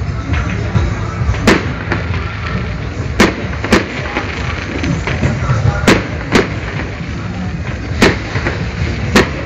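Fireworks bursting overhead: about seven sharp bangs, several coming in quick pairs, over a steady low rumble.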